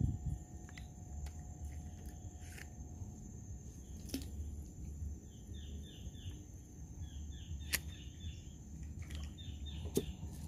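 A bird calling in quick runs of short, falling chirps, three or four runs in the second half, over a steady high-pitched insect drone. A thump comes at the start, and a few sharp clicks come later.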